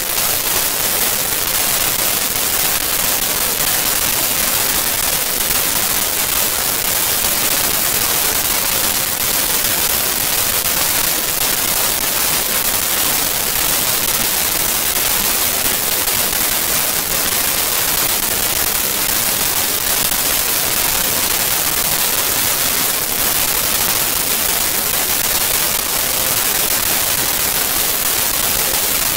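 Loud, steady static hiss like white noise, brightest in the treble, with no other sound over it.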